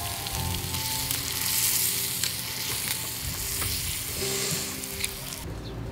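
Mud clams on the half shell sizzling on a wire grill rack, a small metal spoon stirring and scraping the topping inside the shell with a few light clicks against it. The sizzle cuts off suddenly near the end.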